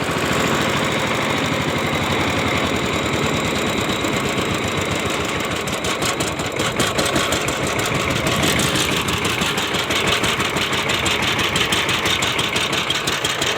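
12 hp Chinese single-cylinder diesel engine of a power tiller running steadily, with a rapid, even knocking beat that becomes more distinct about halfway through.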